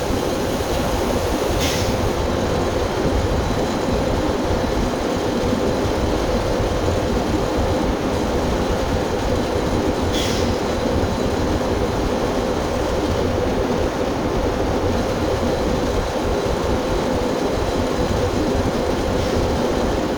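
Steady, loud drone of running farm machinery with a constant hum, broken by two brief high ticks, about two seconds in and again about ten seconds in.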